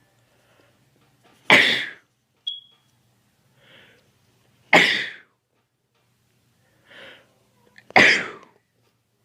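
A man sneezing three times in a row, about three seconds apart, with a fainter intake of breath before the second and third: allergy sneezes set off by pollen. A short high squeak comes just after the first sneeze.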